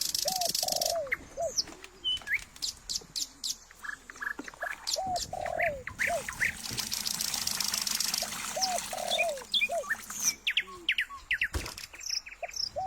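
Several birds chirping and calling, with short high chirps and a repeated lower arched call over a high hiss that comes and goes.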